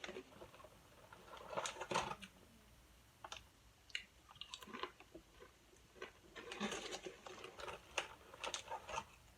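Close-miked eating sounds: soft chewing and crunching in scattered short bursts, heaviest about two seconds in and again in the last few seconds.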